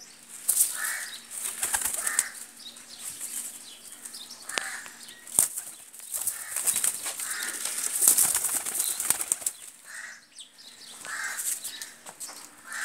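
Domestic pigeons flapping their wings, in repeated short, irregular bursts of wing noise.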